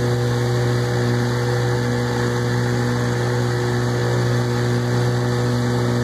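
1957 Elgin 7.5 hp two-stroke outboard motor running steadily at full throttle under load, smooth and even.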